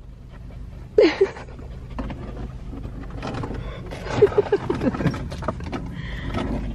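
A dog scrambling about on car seats, with rustling and a few short whimpers, over the low steady hum of the car's running engine.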